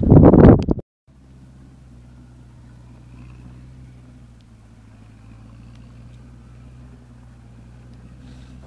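A loud voice cut off abruptly within the first second, followed by a steady low hum made of a few even, constant tones.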